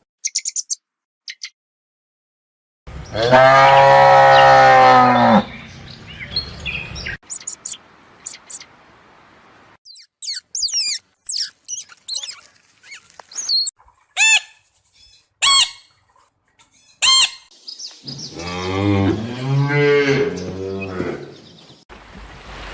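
Cow mooing: one long, loud moo about three seconds in and another, wavering moo near the end, with a run of short high bird chirps between them.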